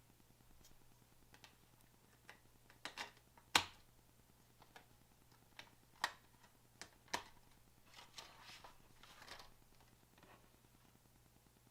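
Scattered small clicks and taps with a few soft rustles: hands handling laptop parts during a memory upgrade. The loudest click comes about three and a half seconds in, over a faint steady hum.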